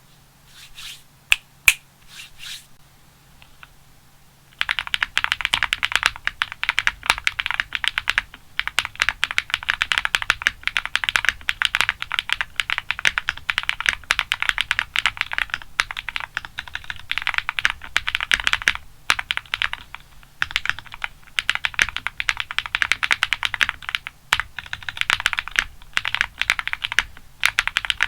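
Link65 custom mechanical keyboard with an FR4 plate, 靜謐軸 switches and GMK keycaps being typed on: a few single keystrokes, then from about four and a half seconds in, fast continuous typing broken by a few short pauses.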